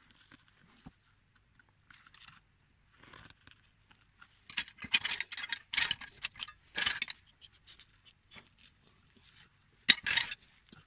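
Hand-tool scraping on a small carving: irregular strokes and light clicks, in denser runs of scraping about halfway through and again near the end.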